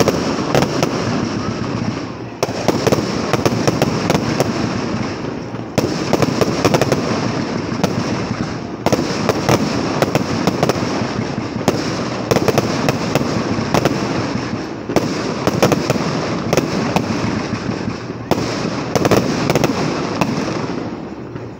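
Fireworks display going off: volleys of sharp crackling bangs over a continuous rumble, a new barrage about every three seconds. The sound drops away sharply near the end.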